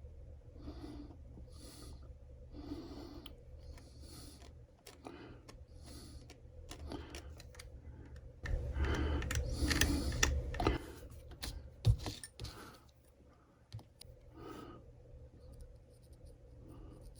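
Hand work at a bench: a series of short scraping and tapping strokes about once a second, a louder, busier stretch of scraping partway through and a single sharp click soon after, over a steady low hum.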